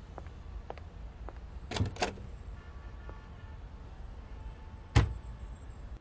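A door being handled and shut: a short rattle of knocks about two seconds in, then a single sharp thud about five seconds in, with faint footstep-like ticks over a low hum.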